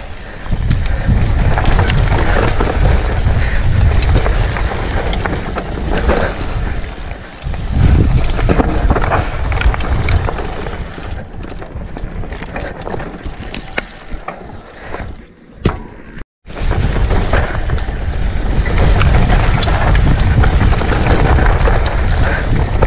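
Mountain bike riding fast down dirt singletrack: tyres rolling over the dirt and the bike rattling, under heavy wind rumble on the camera microphone. About two-thirds of the way through the sound drops away and cuts out for a moment, then returns.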